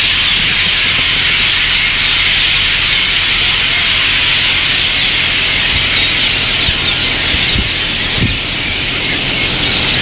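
A large flock of perched songbirds calling all at once: a loud, continuous, dense chatter of many overlapping chirps and squeaks.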